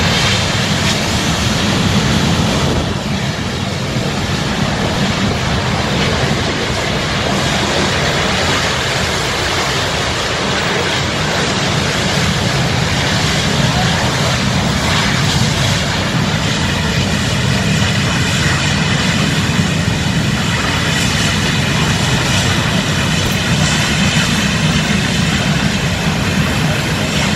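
Gas escaping from a ruptured gas line and burning as a tall jet of flame: a loud, steady roar.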